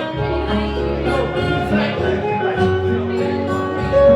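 Fado music: plucked guitars over a moving bass line, playing steadily, with little or no singing.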